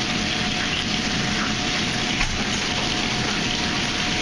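Steady rushing noise of a commercial kitchen's lit gas range and ventilation, with a faint steady hum under it and a light knock about two seconds in.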